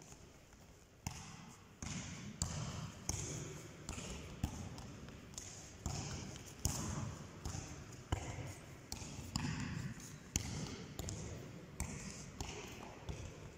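A football being kicked and bouncing on a sports-hall floor, with irregular sharp thuds about once a second.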